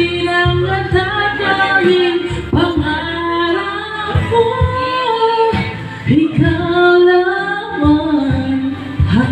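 A woman singing a Tagalog love ballad karaoke-style into a microphone over a backing track, some notes held for about a second.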